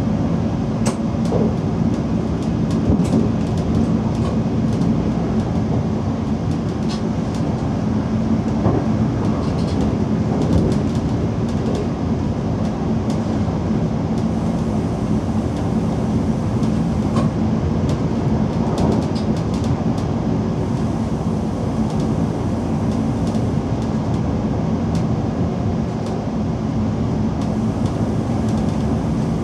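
DB Class 425 electric multiple unit running, heard from inside the driver's cab: a steady low hum with scattered clicks and knocks from the wheels over the track, most frequent in the first dozen seconds and again a little past halfway.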